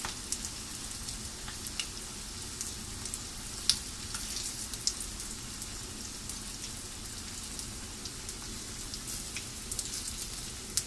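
Hot oil sizzling and crackling steadily around chickpea falafel balls deep-frying at medium heat, with a louder click about four seconds in.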